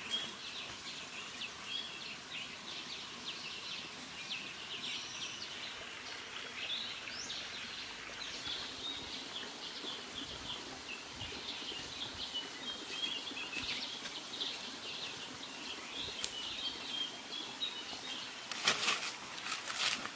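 Wild birds chirping and calling continually in the forest, many short overlapping notes. Near the end comes a brief, louder burst of rustling and knocking, from dry leaves and sticks being handled.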